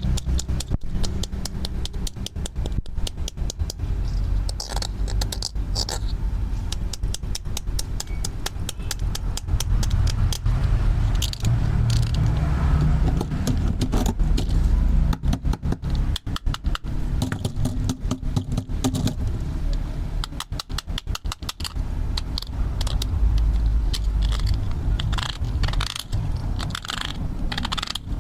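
Plastic toy tools being handled and worked: a dense run of clicks, rattles and scrapes over a steady low rumble.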